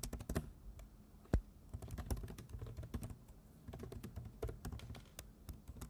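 Typing on a computer keyboard: an uneven run of key clicks, with one harder keystroke about a second and a half in.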